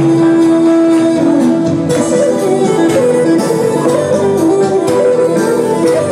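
Live instrumental Albanian wedding music: a melody that opens on a long held note, over several instruments and percussion hits.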